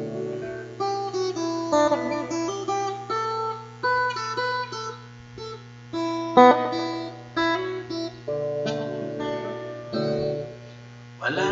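Acoustic guitar played solo, picking a melody of single notes over chords, with a strong chord struck about six seconds in. It drops away briefly near the end before a loud strum.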